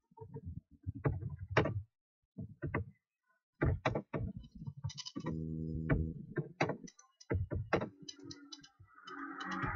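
Computer keyboard being typed on: irregular key clicks in quick runs with short pauses, alongside a low hum that comes and goes in short stretches.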